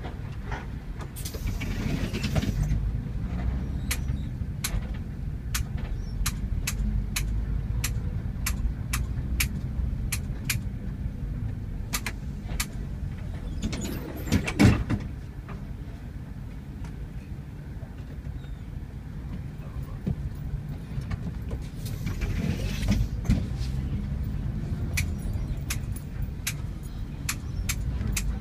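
Bus engine running, heard from inside the passenger cabin as the bus pulls away and drives on, a steady low rumble. Through it runs an even ticking about twice a second, with two brief hissing rushes and one loud knock about halfway through.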